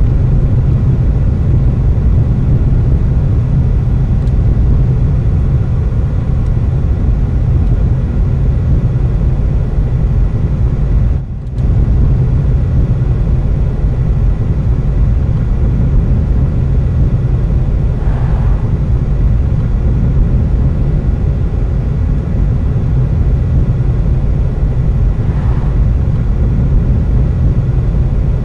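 Steady low rumble of engine and tyre noise inside a moving car's cabin, picked up by a 1985 consumer camcorder's microphone. It dips briefly about eleven seconds in.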